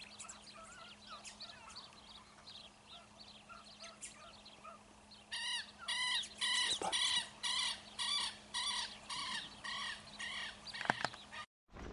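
Faint scattered chirping, then from about five seconds in a run of about ten loud, evenly spaced animal calls, roughly two a second. A short knock sounds near the end.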